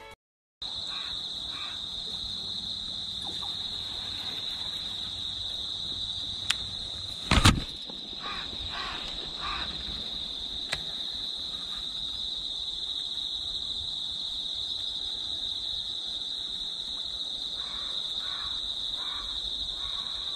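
Insects, crickets by the sound, singing in a steady high trill, with faint short chirps coming in a few groups. About six seconds in there is a light click, then a louder knock, the loudest sound here.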